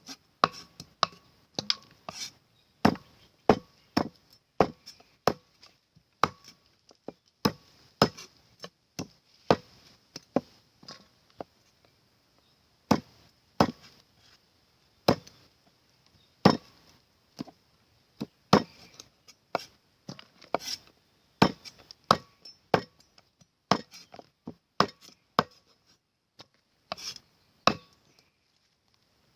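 A knife chopping food on a cutting board: single sharp strokes at an uneven pace, about one or two a second, with a brief pause midway.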